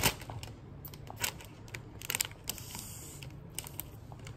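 A few sharp clicks and taps, the loudest right at the start, with a soft breathy exhale of vape vapour about halfway through.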